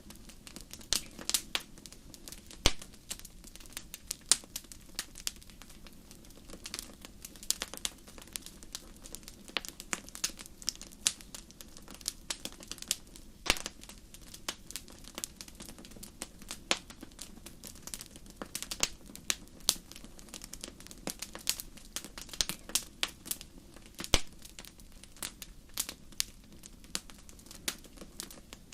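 Fire in a fireplace crackling: a dense, irregular run of sharp pops and snaps over a low steady rumble of the flames, with a few louder pops standing out.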